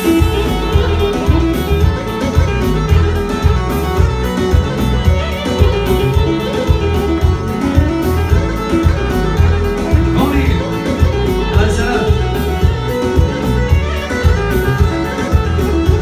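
Live band playing an instrumental passage: a melodic lead line over bass and a steady, driving beat.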